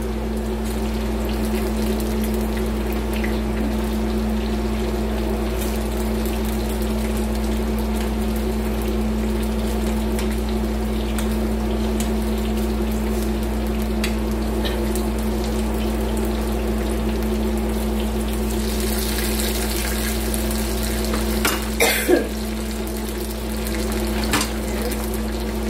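Spring rolls (lumpia) frying in a pan of hot oil, a steady sizzle over a constant low hum. Near the end the sizzle grows louder for a couple of seconds and metal tongs click against the pan a few times as the rolls are turned.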